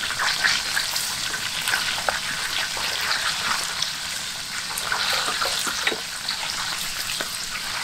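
Food frying in hot oil: a steady sizzle with many small crackles and pops.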